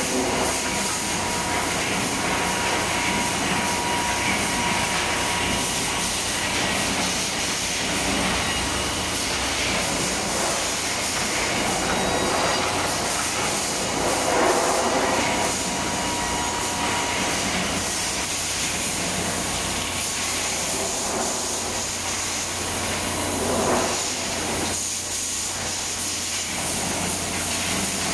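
Machinery of a timber planing and cross-cutting line running, with conveyors, moulder and cross-cut saws together making a steady industrial noise. A faint whine comes and goes, and the noise swells about halfway through and again briefly near the end.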